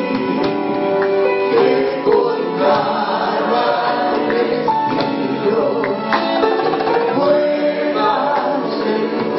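Live Christian worship song: several men and women sing together over a plucked string instrument and a drum kit. Percussion hits fall throughout.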